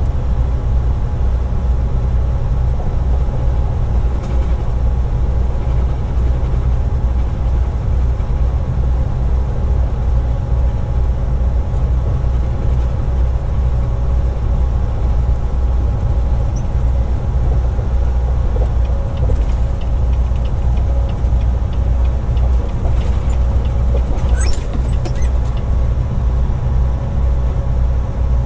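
Volvo VNL860 semi-truck cruising at highway speed, heard from inside the cab: a steady low engine and road rumble with a faint steady hum. A brief faint high squeak near the end.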